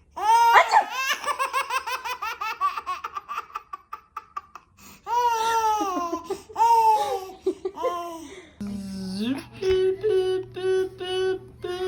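A baby laughing. It starts as a fast run of short giggles, then gives a few longer drawn-out laughs. Near the end another stretch of laughter comes in evenly repeated short bursts.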